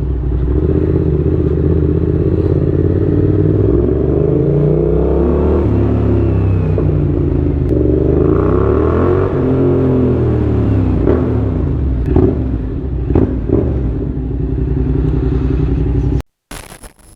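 Yamaha MT-07's parallel-twin engine through a Mivv GP exhaust with no baffles, running and revving, its pitch rising and falling several times, with a few sharp pops about two-thirds of the way through. The sound cuts off suddenly near the end.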